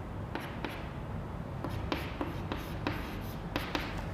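Chalk writing on a blackboard: a quick irregular string of short taps and scratches as the letters are formed.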